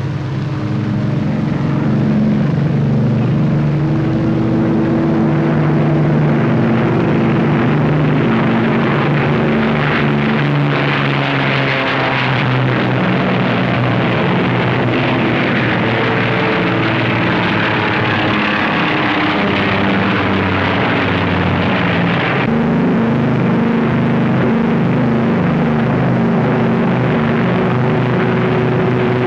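High-powered racing speedboat engines running flat out: a steady, loud engine drone with a rushing noise over it that swells midway and cuts off abruptly about three quarters through, where the engine pitch changes.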